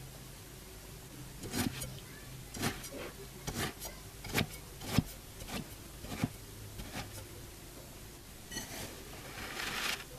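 Kinetic sand crunching: a string of short, sharp crunches, then near the end a longer grainy crunch as a clear glass presses down into the sliced block and crushes it.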